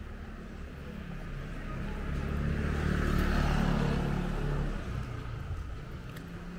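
A motor vehicle passes close by, its engine and tyre noise growing louder to a peak about halfway through and then fading away.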